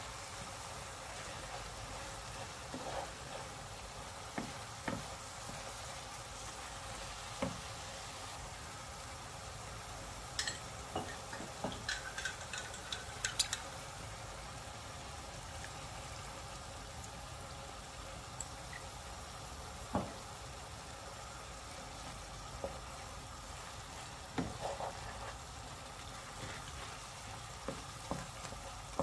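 Noodles, vegetables and duck breast frying in a hot pan with a steady sizzle, stirred with a wooden spatula that knocks and scrapes against the pan now and then, with a quick run of sharper clicks about ten to fourteen seconds in.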